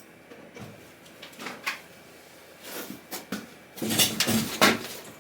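Clicks and clatter of small parts and tools being handled on a workbench: scattered light knocks, then a louder run of clattering about four seconds in.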